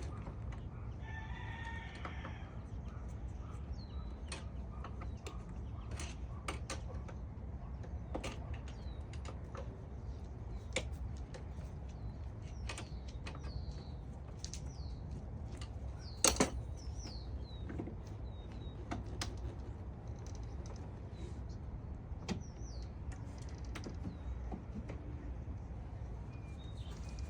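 Scattered clicks and taps of hand tools working a spring hose clamp on a radiator hose, with one sharp loud click about two thirds of the way through. Small birds chirp repeatedly over a steady low rumble.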